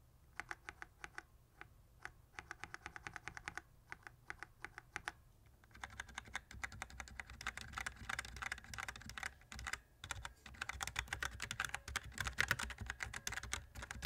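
Razer Orange tactile mechanical key switches, which have a bump but no click, pressed one at a time and in short quick runs on a switch tester. About six seconds in, continuous typing starts on a keyboard fitted with the same switches.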